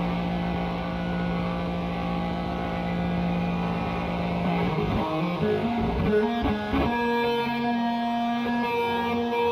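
Instrumental pop music with guitar: a held chord for about the first half, then a brief shifting passage and a new sustained chord.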